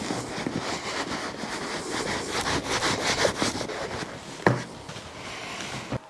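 Cloth rubbing over a leather shoe in quick repeated strokes, working in shoe grease, with a single knock about four and a half seconds in.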